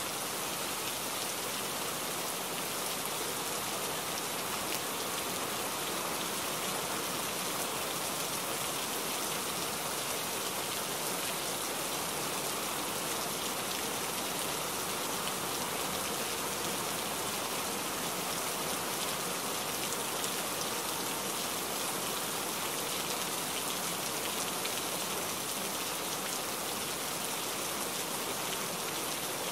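Rain beating on the windshield and cab of a moving truck, a steady even hiss that never lets up.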